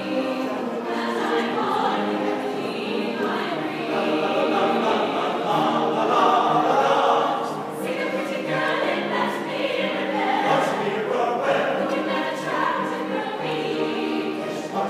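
Chamber choir singing, many voices holding sustained chords in phrases.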